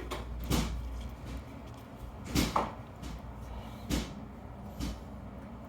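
Handling of a disassembled padlock's small parts: about five short, sharp clicks and taps of pins, springs and tools being picked up and set down on a hard surface, two of them in quick succession about halfway through.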